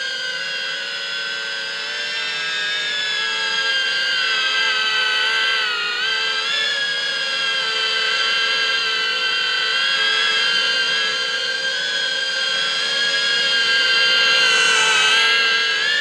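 Diatone GT R90 micro quadcopter's motors and propellers whining as it hovers loaded with a heavy 1500 mAh 3S battery, needing about half throttle to stay up. The pitch wavers up and down with the throttle, dips about six seconds in and climbs near the end.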